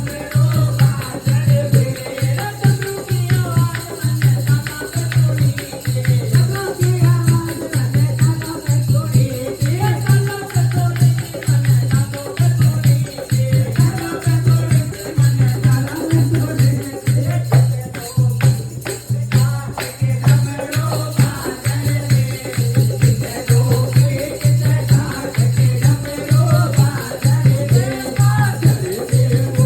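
Hindi devotional bhajan to Shiva: singing over a steady, evenly repeating low drum beat with jingling, rattling percussion.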